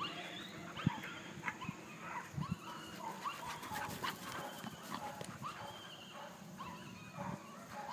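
Dogs at play: scattered faint scuffles and brief, short dog sounds.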